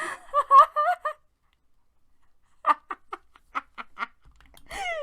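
A person's high-pitched, wavering excited vocalizing in the first second, then a run of about seven short giggles, and a brief rising-and-falling vocal sound near the end.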